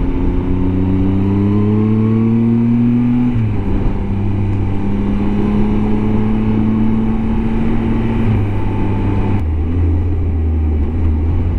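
Motorcycle engine pulling hard up a steep climb. The engine note rises, drops sharply with an upshift about three seconds in, climbs again slowly, drops with another shift about eight seconds in, and then eases back as the throttle closes.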